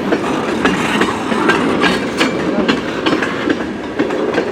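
Freight train cars rolling past as the train slows to a stop, with wheels clicking over the rail joints in an uneven series of sharp clacks over a steady rumble.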